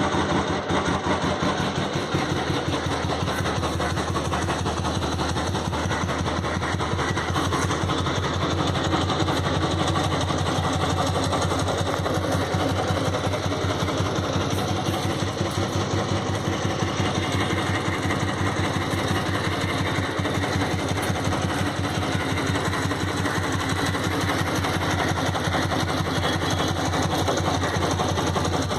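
1985 Royal Enfield Bullet Standard's single-cylinder four-stroke engine idling steadily, its firing strokes making a fast, even beat.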